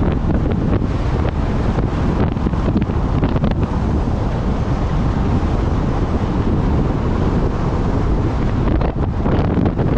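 Wind buffeting the microphone over the steady low rumble of a vehicle driving on a gravel road.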